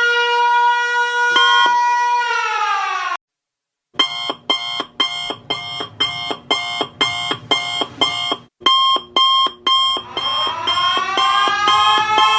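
Emergency alert alarm sounding a siren-like tone. A steady tone drops in pitch and cuts off about three seconds in. After a short gap it returns as fast pulsing beeps, about two and a half a second. Near the end a tone climbs back up to a steady pitch.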